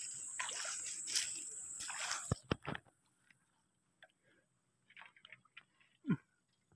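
Faint handling noise from a bamboo-poled lift net being worked over shallow river water, with small wet squishing and sloshing sounds. A steady high hiss stops suddenly about two and a half seconds in, followed by a few sharp clicks and a dull knock near the end.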